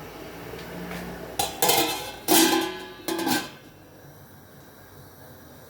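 Metal pot and lid clattering, three clanks with short ringing as the lid is handled and set on the cooking pot, then a faint steady hiss.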